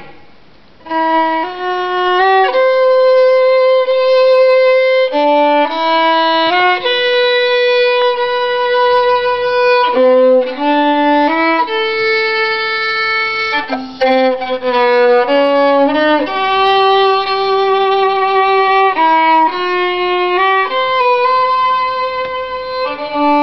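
Solo violin bowed in a slow tune of long held notes played one at a time, some with vibrato, starting about a second in.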